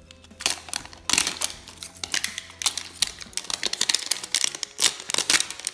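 Plastic wrapping on a toy surprise ball crinkling and crackling in quick, irregular clicks as it is torn and peeled open by hand.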